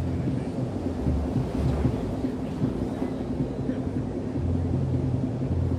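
Steady low rumbling noise with a faint constant hum and no distinct events.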